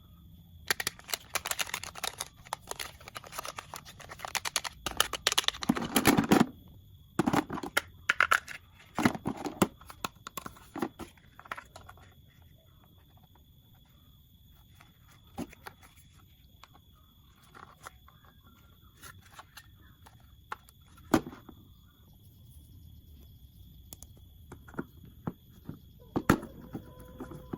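Toy packaging being opened by hand: plastic and card crinkling and tearing, busy for about the first ten seconds, then only scattered light clicks and taps.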